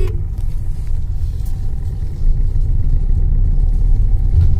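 Steady low rumble of road and engine noise inside the cabin of a moving Maruti Suzuki S-Cross, with a faint even hum joining about a second and a half in.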